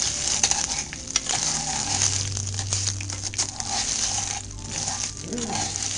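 Uncooked rice sizzling and crackling in hot oil in a pot while it is stirred with a spoon, toasting to brown before the liquid goes in.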